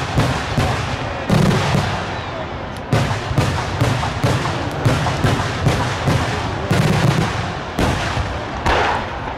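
Daylight fireworks barrage: aerial shells and salutes bursting overhead in rapid, irregular succession, about three bangs a second, with a low rumble beneath that never lets up.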